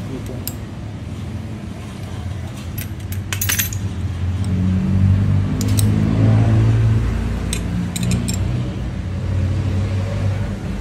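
Small metal parts of a motorcycle brake caliper bracket and its bolts clinking and clicking as they are handled and fitted together. From about four seconds in, a motor vehicle engine hum rises underneath and is the loudest sound for a few seconds.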